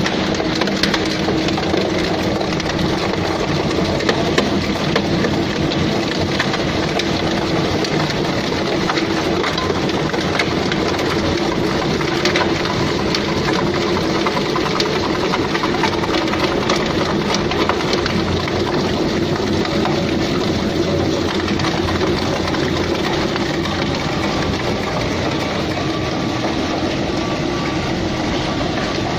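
Industrial single-shaft plastic pipe shredder running under load, its rotor blades cutting waste plastic pipe into chips. A steady motor and gearbox hum sits under a constant dense clatter of small clicks and knocks from the plastic being cut and the chips falling.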